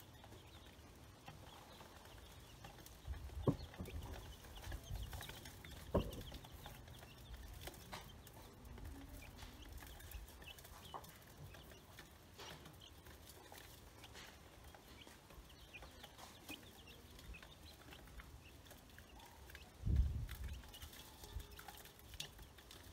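Chicks and ducklings peeping faintly and scattered, with light ticks of beaks pecking feed in a metal bowl. A few low thumps stand out, the loudest near the end.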